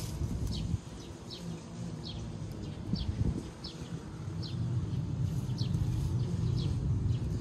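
A bird calling over and over, short chirps that drop in pitch, about one every 0.7 seconds. Dry fallen leaves rustle and crunch as a cat paws at them and walks through them, most clearly near the start and about three seconds in, over a steady low rumble.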